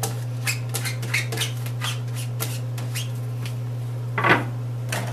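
Light clicks and scrapes of a yellow plastic squeegee working clear packaging tape down onto an aluminium screen-printing frame, with one louder scrape a little past four seconds in. A steady low hum runs underneath.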